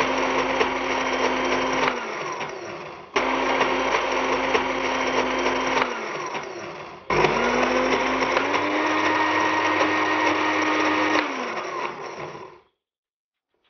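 Small electric blender grinding red onions with chili flakes and salt into a coarse paste. It runs in three bursts, the motor slowing and dropping in pitch before each restart. It winds down and stops near the end.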